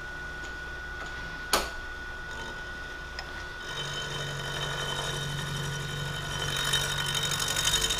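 Milling machine spindle running with a half-inch carbide end mill, with one sharp click about a second and a half in. From about three and a half seconds the end mill touches down and starts a light skim cut on the bronze braze repair over cast iron, a fast ticking cutting sound that grows louder toward the end.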